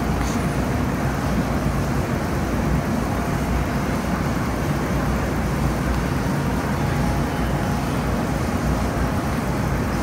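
Steady rushing background noise with a low rumble, unbroken and even in level throughout.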